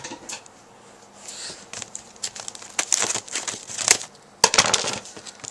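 Plastic packaging of a Rubik's cube being worked open by hand: crinkling and crackling with scattered sharp clicks, loudest in a dense stretch near the end.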